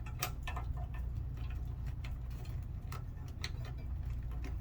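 Irregular sharp clicks and ticks of plastic wiring connectors being handled and unplugged from a mobility scooter's motor controller, over a steady low hum.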